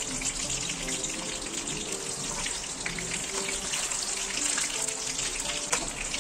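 Sinsal-wrapped embutido (pork meat loaf in caul fat) frying in hot oil in a stainless pan: a steady sizzle with constant small crackles. Near the end comes one sharp click as metal tongs knock the pan while turning the logs.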